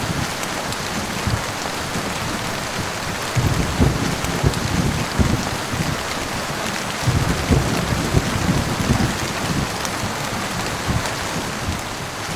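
Heavy rain falling in a steady hiss, with low rolling thunder rumbling under it twice, from about three seconds in and again from about seven seconds in.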